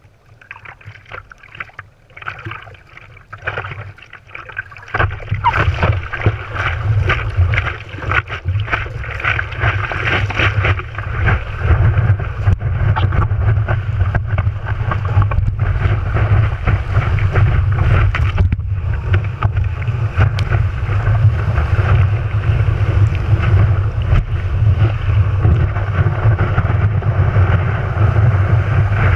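Water rushing and splashing past a longboard's nose-mounted camera as the board rides a wave, with heavy low wind buffeting on the microphone. The first few seconds hold only light lapping and scattered splashes; about five seconds in, the loud steady rush begins and carries on.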